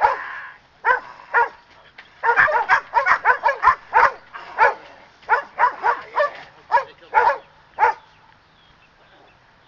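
Standard poodle barking in quick volleys at a man teasing it with his hand, as in attack training; the barks come fastest about two to four seconds in and stop about eight seconds in.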